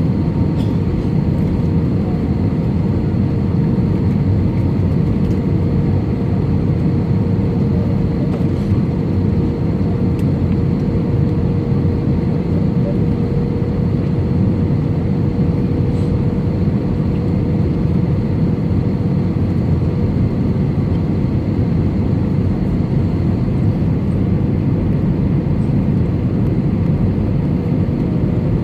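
Steady cabin noise of an Airbus A320-200, engines and airflow heard from inside, with a faint steady hum running through it.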